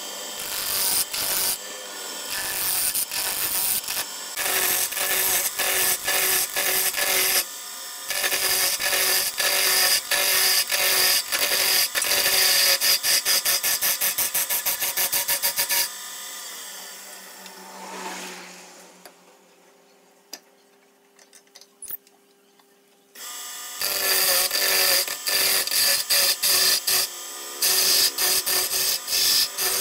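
Hand turning chisel cutting a large hardwood blank spinning on a wood lathe: a loud, rapid rattling scrape over the steady hum of the lathe. The cutting breaks off for several seconds past the middle, then starts again.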